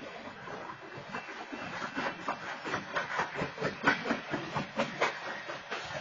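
BNSF freight train's cars rolling past, steel wheels clattering over the track in a quick, uneven run of sharp clacks over a steady hiss. The clacks build up and are loudest about four to five seconds in.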